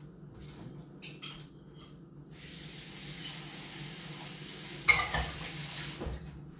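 A steady hiss that starts about two seconds in and cuts off sharply about four seconds later, with a sharp knock near its end. A couple of light clicks come before it.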